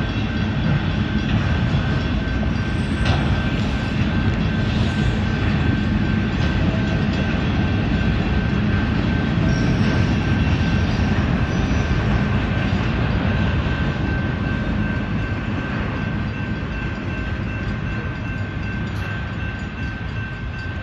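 Union Pacific manifest freight train's autorack cars rolling past: a steady rumble of wheels on rail with a thin, steady high-pitched ring from the wheels. It grows a little quieter over the last few seconds as the cars move away.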